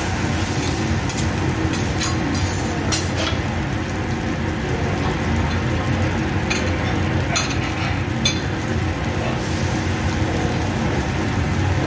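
Fried rice sizzling on a steel teppanyaki griddle, with metal spatulas scraping and clicking against the hot plate, mostly in the first few seconds and a few more sharp clicks later. A steady low hum runs underneath.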